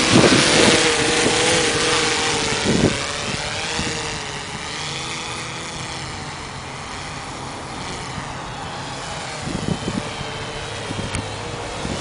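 Mariner waterproof quadcopter, a DJI Phantom-based drone, hovering and flying in strong wind. Its propellers make a steady hum that wavers in pitch as the motors correct against gusts, and the hum grows quieter a few seconds in as it moves off. Wind buffets the microphone with low rumbles near the start and again near the end.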